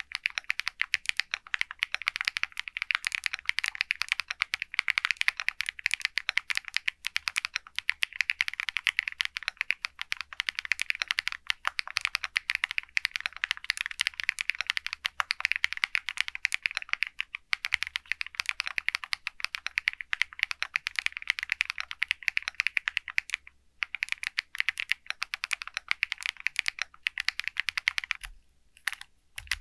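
Fast continuous typing on an SPM AL66A full-aluminium 66-key mechanical keyboard with high-content PBT keycaps: a dense run of key clacks. It breaks off briefly about three-quarters through and stops near the end, with only a few last keystrokes.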